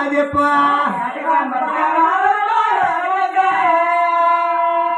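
A performer's voice singing a drawn-out, gliding melodic line in the style of a Telugu folk-theatre song, settling into a long held note near the end.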